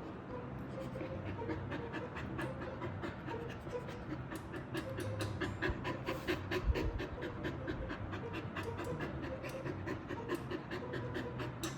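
Golden retriever panting rapidly in quick, steady breaths, with a soft low thump about seven seconds in.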